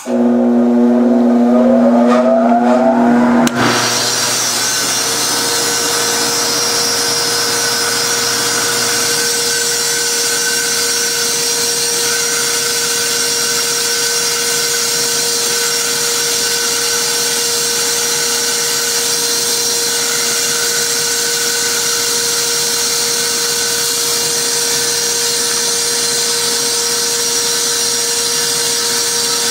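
Small bandsaw switched on, its motor and blade coming up to speed over the first few seconds, then running steadily with a steady hum under a high, even hiss as it cuts a 15-degree scarf joint through a mahogany guitar-neck blank. Really noisy.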